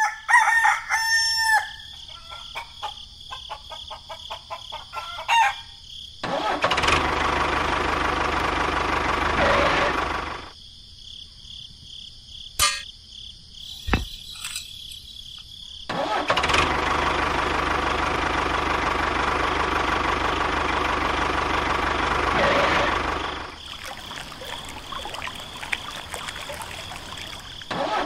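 A rooster crows in the first two seconds. After that a tractor engine runs in long steady stretches. In a quiet spell in the middle, a few sharp clicks sound as a metal pin is pushed into a small trailer hitch.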